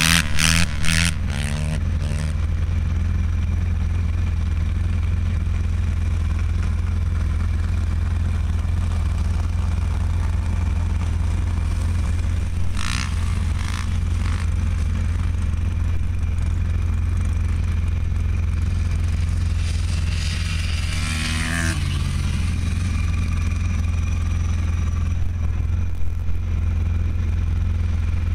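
Dirt bike engine revving, stepping up in pitch for the first couple of seconds, then a steady low rumble; about twenty seconds in, the engine revs up and falls away again.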